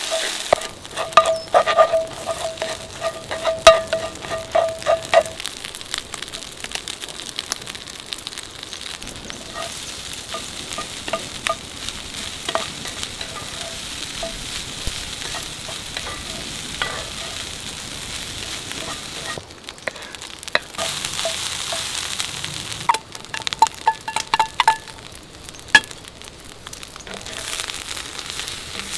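Egg fried rice sizzling in a cast-iron skillet over a wood fire, with a wooden spatula scraping and tapping against the pan as it is stirred, in a steady run of short knocks.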